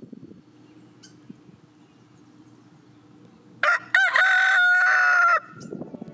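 Faint low background hum, then about three and a half seconds in a rooster crows once, loud, a cock-a-doodle-doo lasting nearly two seconds.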